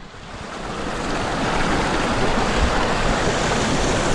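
Steady rush of a river flowing over rocks, fading in over the first second.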